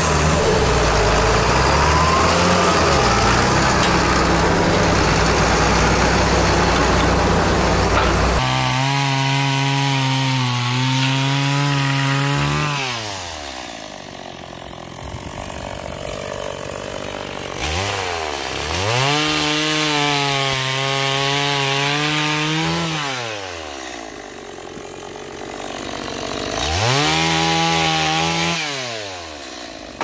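A John Deere tractor engine runs steadily for the first few seconds. It then gives way to a STIHL two-stroke chainsaw that revs up to full throttle three times, holding high revs for several seconds each time while cutting wood on a stump, and drops back toward idle in between.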